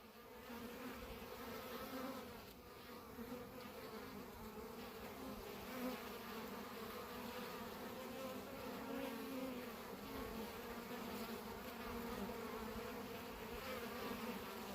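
Italian honey bees buzzing around their hives in a steady, even hum.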